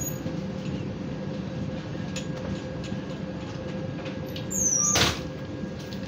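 Steady rumble and hum of a train at a railway station, with scattered faint clicks. A brief loud burst of noise about five seconds in, with a short high falling squeal.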